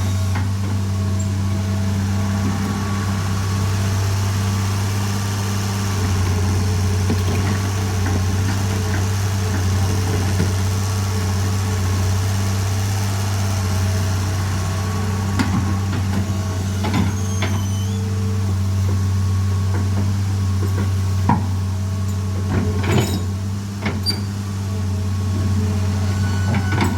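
Excavator engine idling steadily with a low hum, with a few scattered metallic knocks and clinks from about halfway through.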